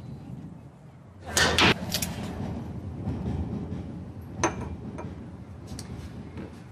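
Room handling sounds: a brief clatter about a second and a half in, then a few sharp single knocks and clinks, like a door and crockery being handled.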